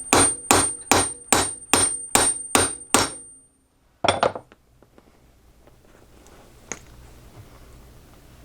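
A hammer striking a hollow hole punch to cut a hole through a linen buffing wheel: about eight quick, even blows, roughly two a second, with a high metallic ring, then a pause and one more blow about four seconds in.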